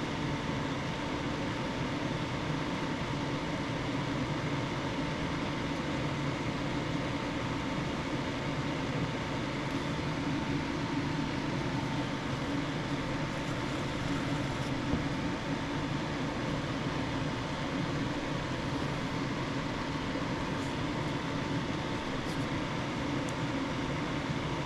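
Steady mechanical hum and hiss with a constant thin tone, unchanging in level, with a few faint ticks midway.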